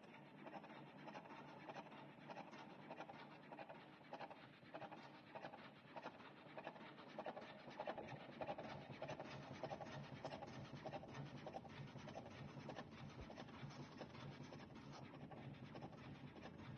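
Electric cigarette-rolling machine running, its helical auger feeding tobacco: a faint, steady scratchy whirr packed with rapid fine clicks, a little louder in the middle.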